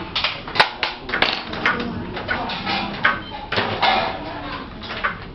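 Sharp knocks and metallic clatter from work on a light-gauge steel ceiling frame for gypsum board, a few separate strikes rather than a steady rhythm.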